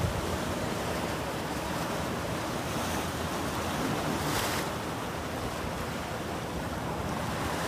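Steady rushing of wind on the microphone over choppy water, with a brief louder rush about four and a half seconds in.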